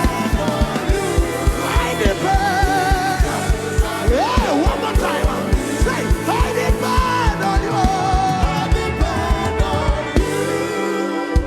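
Gospel song with singing over a steady driving drum beat; the beat and the full backing drop out shortly before the end.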